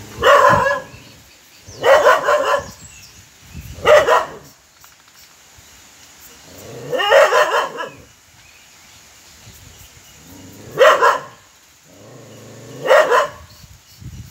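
A dog barking at a lizard it is facing off with: six loud bouts of barking, spaced two to four seconds apart.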